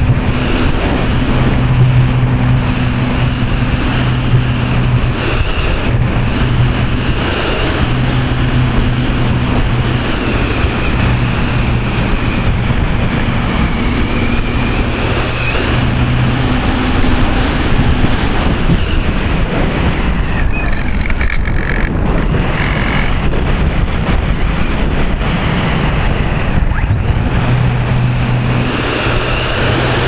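Wind and airflow rushing loudly over the onboard microphone of an Art-Tech Diamond 2500 radio-controlled electric motor glider in flight. Under it runs the steady low drone of its electric motor and propeller. The drone drops out a little past halfway while the model glides, and returns near the end.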